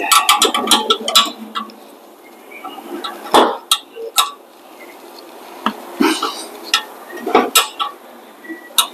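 Metal clicks and clinks of a hand wrench and brake hardware being handled at a car's rear brake caliper: a quick run of clicks in the first second or so, then scattered single clinks.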